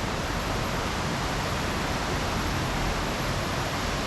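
Waterfall water rushing: a steady, even roar of falling water.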